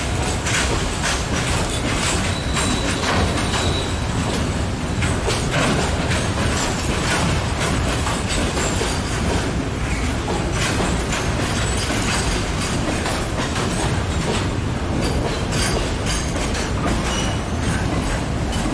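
A train running past close by, its wheels clattering steadily over the rail joints, with a brief thin wheel squeal a couple of seconds in.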